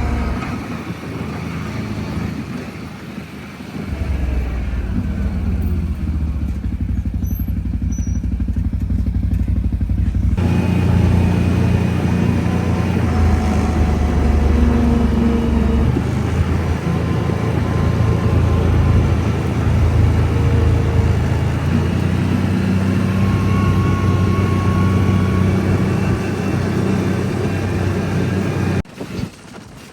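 ATV engine running while riding, its pitch going up and down with the throttle. The sound changes abruptly about a third of the way in and cuts off sharply just before the end.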